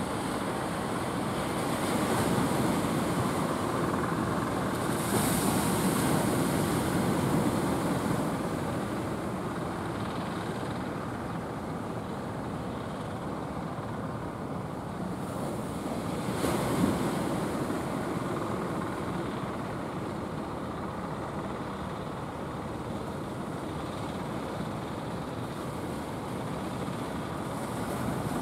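Surf rushing onto the beach, swelling louder twice as waves break, with wind on the microphone.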